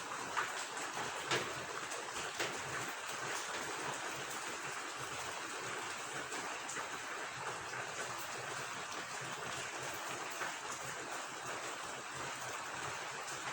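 Steady rain falling with running water, an even hiss with a few sharper drop sounds in the first few seconds.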